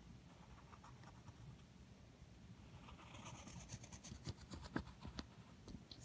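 Faint scratching of a wooden pencil's graphite tip drawing lines on paper, strongest about halfway through, with a few light ticks near the end.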